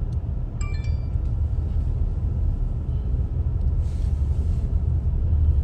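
Steady low road and engine rumble inside a moving car's cabin. A short, faint high tone sounds just under a second in.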